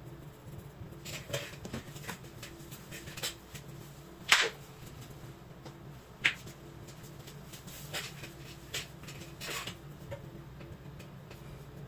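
Graphite pencil scratching on sketchbook paper in short, separate shading strokes over a faint steady low hum. Two sharper, louder brief sounds come about four and six seconds in.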